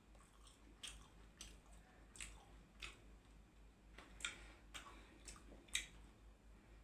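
A person chewing food close to the microphone: faint, irregular wet clicks and smacks of the mouth, about nine in a few seconds.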